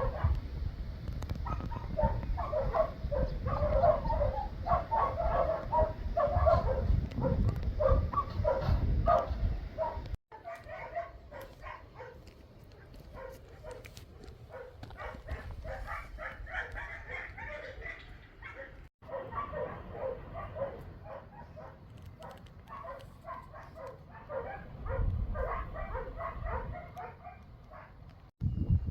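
Many quick, repeated animal calls, several a second, over wind rumbling on the microphone.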